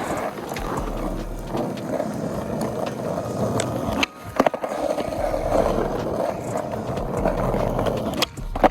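Skateboard wheels rolling over pavement, broken about four seconds in by two sharp clacks of the board, then rolling again, with another pair of clacks near the end.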